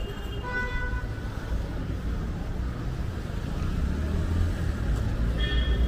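Street traffic: the low rumble of passing motor vehicles, getting somewhat louder in the second half, with two short high-pitched tones, one just after the start and one near the end.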